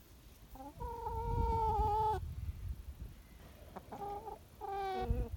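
Chickens calling: one long drawn-out note about a second in, then two shorter calls near the end.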